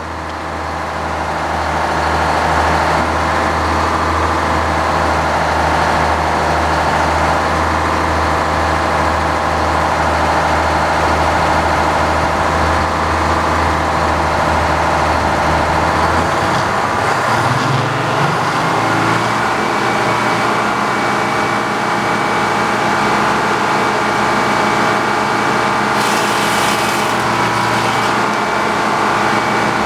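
Sawmill running as a log is pulled through to saw off a 17-inch board, a steady loud mechanical drone. About halfway through its pitch shifts, and a brief hiss comes near the end.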